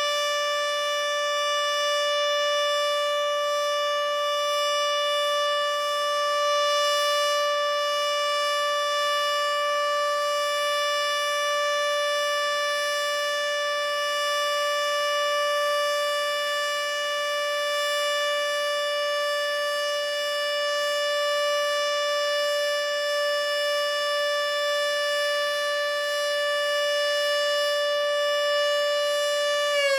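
Federal Signal Model 2 outdoor warning siren sounding a single steady tone at full speed during its weekly test. Its pitch just begins to fall at the very end as it starts to wind down.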